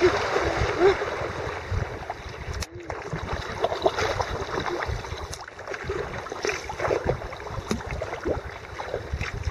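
Kayak being paddled: water splashing and gurgling around the paddle and hull, with a low rumble of wind on the microphone.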